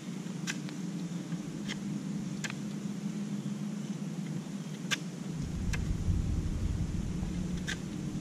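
Pocketknife whittling a wooden stick: half a dozen short, sharp clicks of the blade biting the wood, spaced irregularly. Under them runs a steady low drone, joined about five seconds in by a deeper low rumble.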